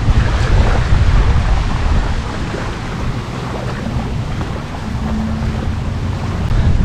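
Wind buffeting the microphone with a heavy low rumble, over small waves washing on a sandy beach.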